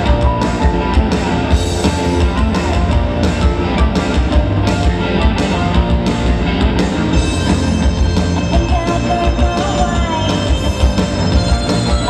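Live rock band playing loudly through a PA, with electric bass and a steady driving beat.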